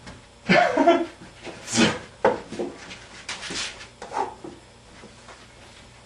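Several short knocks and clatters of thrown floppy disks hitting furniture, mixed with brief yelps and shouts, over the first four seconds or so.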